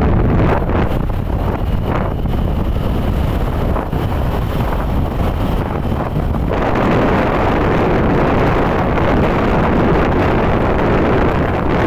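Wind buffeting the microphone on a moving two-wheeler, over a low rumble of travel. About six and a half seconds in the rush grows louder and fuller.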